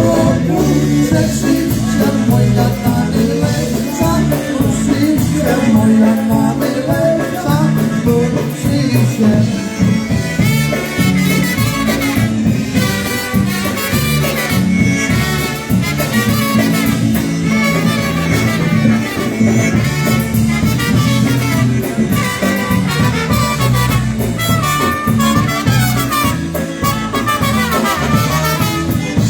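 Live polka band playing a song, loud and steady.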